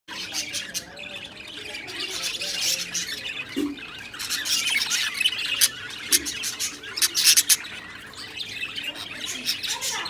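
Budgerigars chattering with a continuous warble and sharp chirps, loudest about five and seven seconds in.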